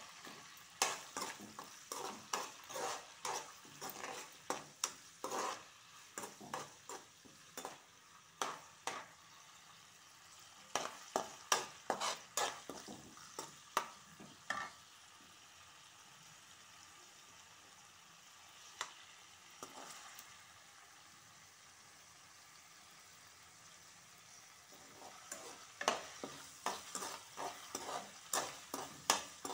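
Steel slotted spoon scraping and clinking against a kadai as a tempering of onions, green chillies, curry leaves and seasoning seeds fries in hot oil with a faint steady sizzle. The stirring stops for about ten seconds in the middle, leaving only the sizzle, and starts again near the end.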